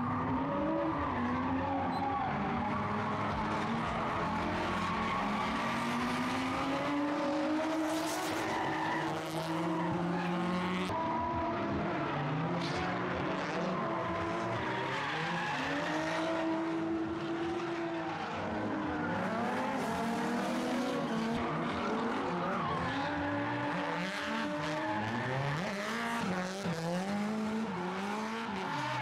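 Drift cars' engines revving, their pitch rising and falling over and over with the throttle, over the squeal and hiss of tyres sliding.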